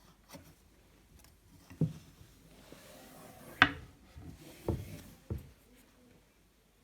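Four short knocks and clatters of objects being handled in a small room, the loudest about three and a half seconds in.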